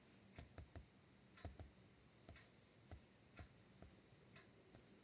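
Near silence with about a dozen faint, irregular clicks.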